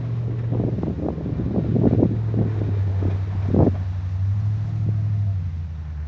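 Duramax diesel pickup's engine running steadily as its V-plow pushes snow, with irregular scraping and crunching of snow against the blade over the first few seconds. Wind buffets the microphone.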